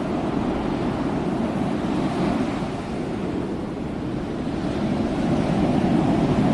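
Rough sea and wind: waves surging in a steady rush, growing louder over the last couple of seconds.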